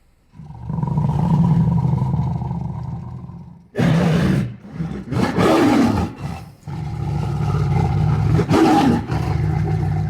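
White tiger roaring and growling in deep, rough calls. A long roar is followed a little before halfway by a cluster of shorter calls that fall in pitch, then another long roar.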